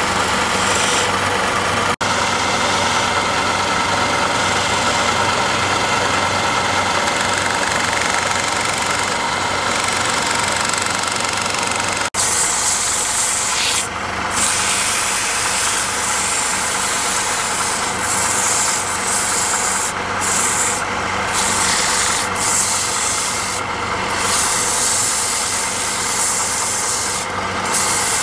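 Wood lathe running with a steady hum while a chisel cuts the spinning wooden piece. About twelve seconds in, sandpaper is pressed against the turning wood, adding a loud hiss that rises and falls as the hands move.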